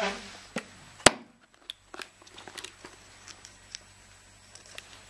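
Hands loading film into a film camera: light rustling and small clicks of plastic and metal parts as the film is pulled from its spool and threaded into the mechanism, with one sharp click about a second in.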